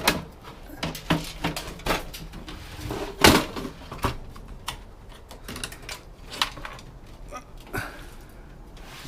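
Scattered clicks and knocks of hard parts of a piece of electronic equipment being handled, one much louder knock about three seconds in.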